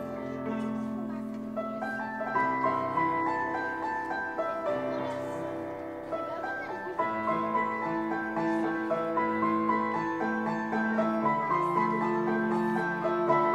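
Instrumental music led by a piano-like keyboard, a melody over held chords, growing louder about seven seconds in.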